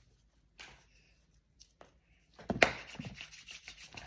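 Hand sounds. It is mostly quiet with a few faint clicks, then about two and a half seconds in comes one sharp slap of hands, followed by quick rubbing and rustling of the hands.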